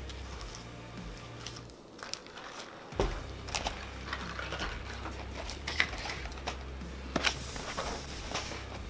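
Handling noise of fast-food packaging: cardboard burger boxes and plastic drink cups being picked up, opened and set down on the table, giving scattered sharp clicks and short rustles over a low steady hum.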